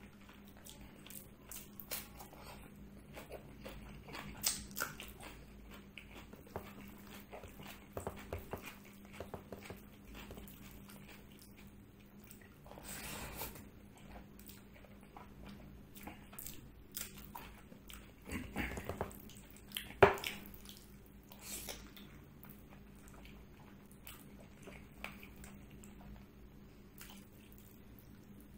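Close-miked eating by hand: chewing and wet mouth sounds, with fingers squishing and mixing rice and mutton paya curry on the plate, giving scattered short clicks and smacks. One sharp click about two-thirds of the way through is the loudest sound, over a faint steady hum.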